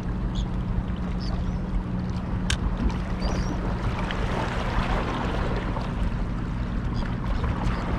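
Sea water washing and lapping against shoreline rocks over a steady low hum, with a single sharp click about two and a half seconds in.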